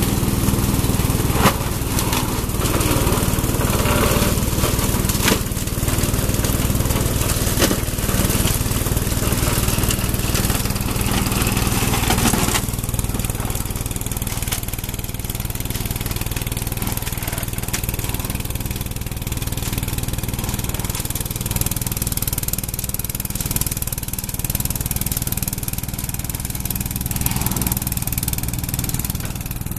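Riding lawn mower's engine running steadily under load while its deck blades cut and shred brush, with many sharp cracks and snaps of branches being chewed up. About halfway through the cracking and shredding noise drops away suddenly, leaving the engine running on its own.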